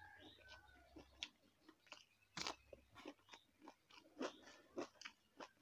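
Close-miked chewing of crunchy food: a string of irregular, crisp crunches, a few each second.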